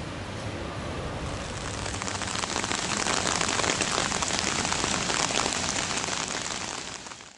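Rain pattering and splashing on standing water, a dense patter of many drops. It grows heavier and louder about two seconds in, then fades out quickly at the end.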